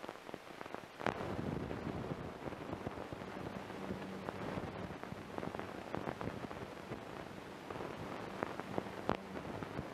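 Steady hiss dotted with many small crackles and clicks, over a faint low hum: the surface noise of an early 1930s optical sound-film track. It cuts in suddenly at the start, with a sharper click about a second in and another near the end.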